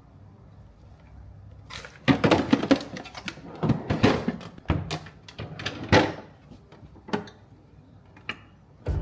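A quick run of clicks, knocks and clatter from containers and household items being handled and set down, starting about two seconds in and easing off after about seven, with one more knock near the end.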